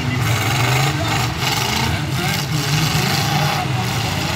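Engines of several demolition derby cars running and revving at once, a loud, steady rumble with a few brief knocks mixed in.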